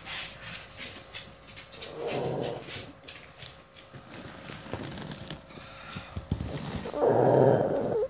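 Pug snoring in deep sleep: two loud snores, about two seconds in and near the end, with softer breathing sounds between.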